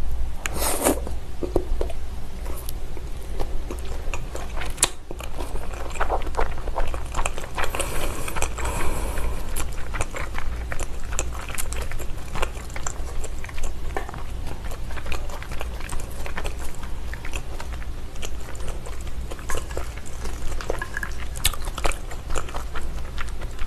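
Close-up chewing of raw salmon sashimi: a steady run of soft, wet mouth clicks and smacks as the fish is bitten and chewed.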